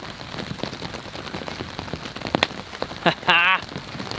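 Steady rain falling, with scattered ticks of drops striking. A little past three seconds in, a short wavering voice sound rises above it, the loudest thing heard.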